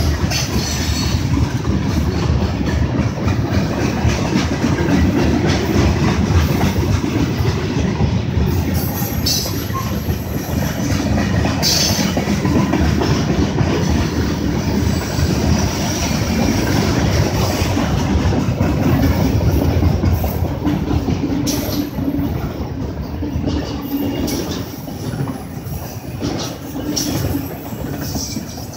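Freight train cars rolling past: a steady rumble and clatter of steel wheels on the rails, with covered hoppers giving way to autorack cars.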